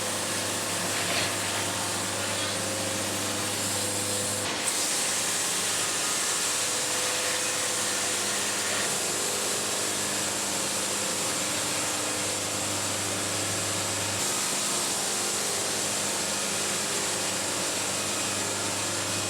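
Band sawmill running, a steady even mechanical noise with a constant low hum.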